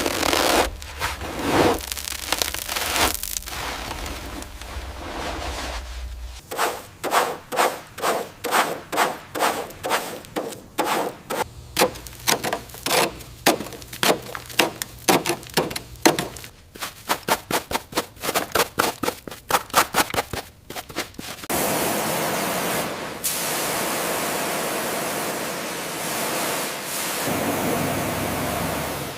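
Hand sanding: repeated rubbing strokes that come faster toward the end. About two-thirds of the way through they give way to a steady hiss.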